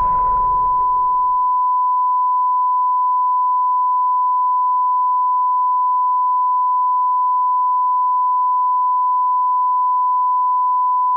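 A single steady electronic beep tone, held unchanging like a test tone. The low tail of a rumble fades out under it in the first second or so.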